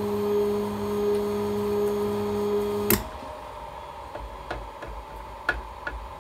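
Drill press's motorised knee drive running with a steady hum, stopping abruptly with a click about three seconds in. A few light ticks and taps follow.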